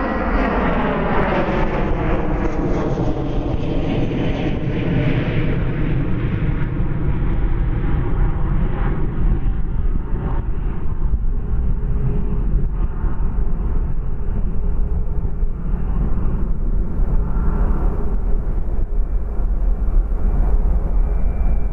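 Boeing 737-8 MAX's CFM LEAP-1B turbofan engines running as the jet rolls along the runway. The engine tones fall in pitch over the first few seconds, then settle into a steady whine.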